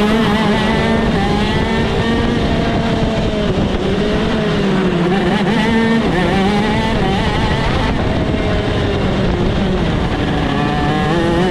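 Shifter kart engine running hard on track, its pitch rising and falling repeatedly over a steady rush of noise.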